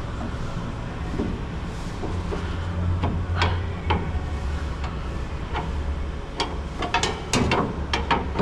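A series of sharp metallic clicks and knocks from a truck's body panels being shifted and adjusted by hand, coming faster near the end, over a steady low hum.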